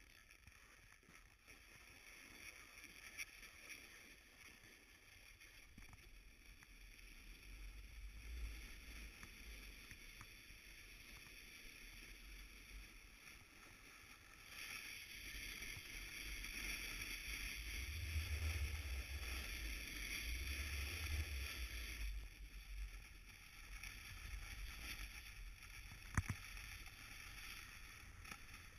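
Steady hiss of sliding over packed snow on a ski slope, with wind rumbling on the microphone. It grows louder about halfway through, and there is a single sharp click near the end.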